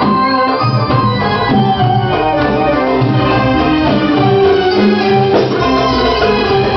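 Live Arabic belly-dance music from a small band: an electronic keyboard with an organ-like tone plays the melody over a steady hand-drum rhythm.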